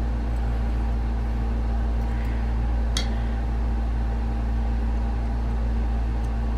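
Steady low hum, with one small sharp metal click about three seconds in from a screwdriver working the small trigger-guard screw on a Savage 24E.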